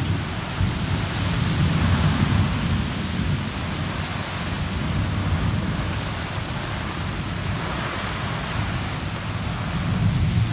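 Heavy rain pouring steadily onto a wooden deck and the surrounding trees in a thunderstorm, with a low rumble that swells in the first few seconds and again near the end.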